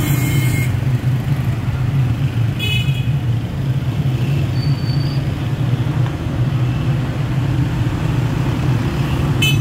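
Motorcycles and cars of a slow procession passing, their engines running in a steady low rumble, with short horn toots at the start, about three seconds in, and again at the end.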